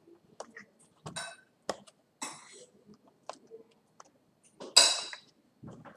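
Clicks, taps and knocks of a Lenovo IdeaPad S410P laptop's lid and casing being handled, with one louder half-second scrape about five seconds in.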